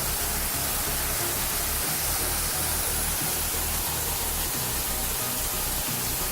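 A waterfall's water rushing in a steady, even hiss, with a low uneven rumble underneath.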